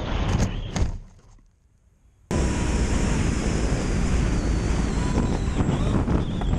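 Wind rushing over an onboard camera microphone on a small electric RC plane in flight, its brushless motor and three-blade propeller running. About a second and a half in the sound drops almost to silence, then cuts back in suddenly and runs on steadily.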